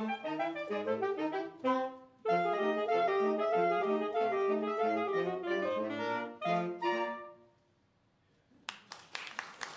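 Saxophone quartet playing the closing bars of a ragtime arrangement, with a brief break about two seconds in, ending on a final chord about seven seconds in. After a short silence, the audience starts applauding near the end.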